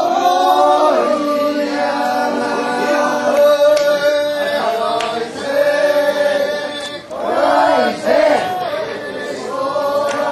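A group of festival procession members chanting together in unison, in long drawn-out notes with a few short breaks.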